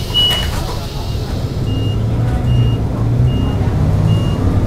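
City bus engine running inside the cabin, growing louder as the bus pulls away about two seconds in. A rapid high warning beep stops just after the start, then a softer short beep repeats about every 0.8 seconds.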